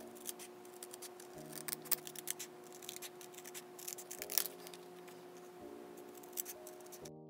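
Scissors snipping through a photo printed on plain paper, a run of short irregular cuts, over soft background music.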